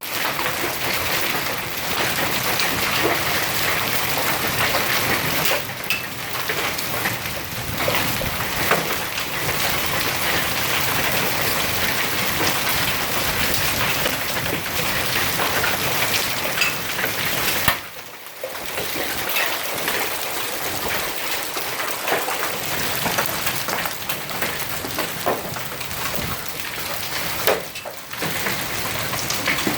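Large hailstones and heavy rain pelting down in a thunderstorm: a dense, steady clatter with sharp individual stone impacts scattered through it, easing briefly twice, the second time near the end.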